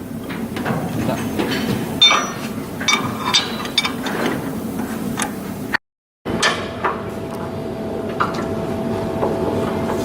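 Scattered metallic clinks and knocks of tools and steel parts being worked by hand, over a busy shipyard background. After a brief dropout about six seconds in, a steady hum runs under the further knocks.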